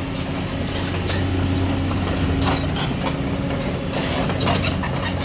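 Excavator's diesel engine running steadily under the work, with irregular knocking and clattering from the hydraulic breaker and rock over it.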